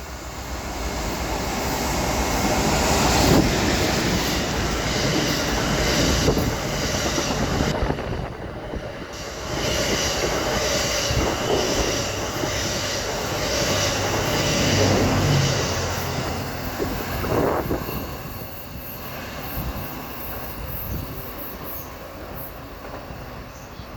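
A passenger train of an EF81 electric locomotive and twelve E26-series coaches passing through a station at speed: rumble and clatter of wheels on the rails, building quickly, staying loud for most of the pass, then fading away over the last several seconds.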